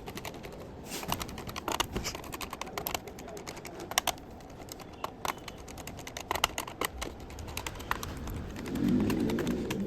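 Irregular small clicks and taps from handling a laptop, several a second at times, like typing. Near the end a pigeon coos.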